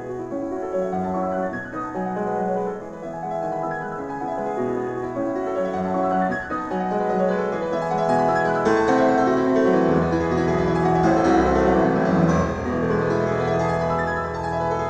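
Piano music with many sustained notes, growing louder and fuller as low bass notes come in about ten seconds in.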